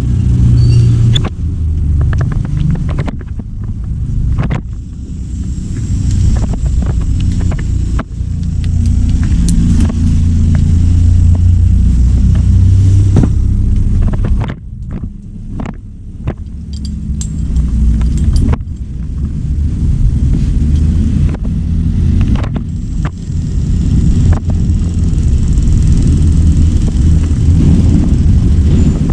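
Heavy diesel machinery, an excavator, running with a loud low rumble that rises and falls, with scattered knocks.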